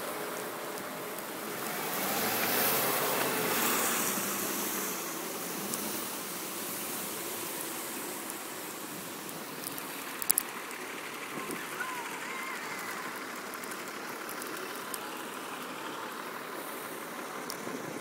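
City traffic on a snow-covered street: cars driving through slush with a steady hiss of tyres, swelling as a vehicle passes a few seconds in. A sharp click about ten seconds in.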